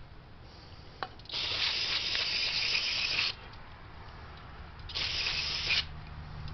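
Aerosol brake cleaner sprayed in two bursts, a long one of about two seconds and then a shorter one of about a second, with a sharp click just before the first.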